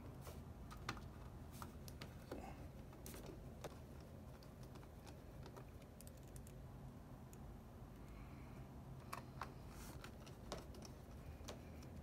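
Faint, scattered light clicks and taps of hands pressing and handling a MacBook Air's aluminium bottom cover as it is seated back in place, with a cluster of sharper clicks about nine to ten and a half seconds in, over a low steady hum.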